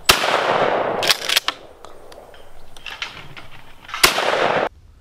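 Two shots from a 12-gauge pump-action shotgun about four seconds apart, each with a short echoing tail. About a second after the first shot come a few quick clicks of the pump action being racked. The second shot's tail cuts off abruptly.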